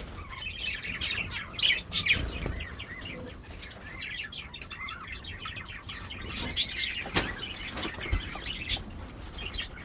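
Pet cockatiels and finches chirping continuously, a dense chatter of short high calls, with a couple of brief low thuds about two seconds in and again near the end.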